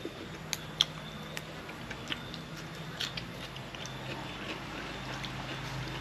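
Chewing sounds from someone eating raw shrimp, with a few sharp wet mouth clicks and smacks in the first three seconds, over a steady low hum.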